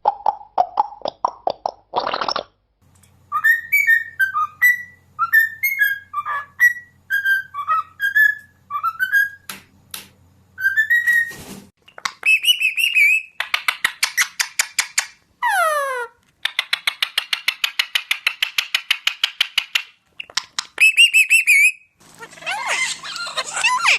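Pet bird whistling and chirping in a varied run: short rising-and-falling whistled notes about two a second, fast trains of clicks and buzzy pulses, one quick falling whistle glide, and bursts of warbling chirps.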